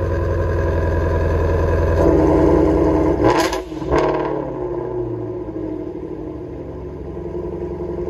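Ford Shelby GT350R's 5.2-litre flat-plane-crank V8 running just after a cold start, heard through its quad exhaust tips. The engine note lifts about two seconds in, two sharp, short snaps follow about a second later, and then it settles to a steadier, lower idle.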